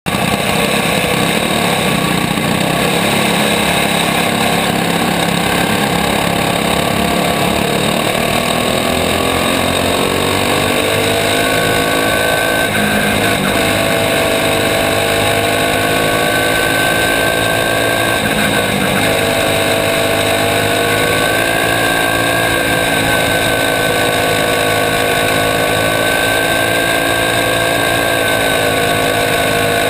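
Engine of a caged racing kart heard from on board, running hard: its pitch climbs over the first dozen seconds as it accelerates, then holds high and wavers, with a brief dip past the middle.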